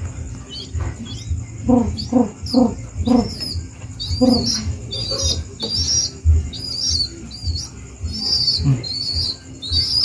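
Young pigeon squab begging while being hand-fed: short, high squeaky peeps repeated about twice a second. A few lower pulsed notes come in the first half, with soft knocks underneath.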